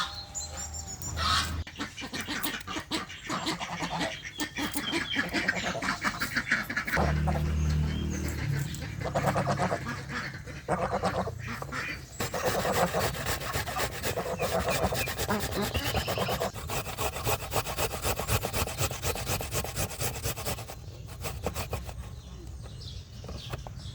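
Farmyard ducks and geese calling almost continuously in rapid runs of quacks and honks, thinning out for the last few seconds.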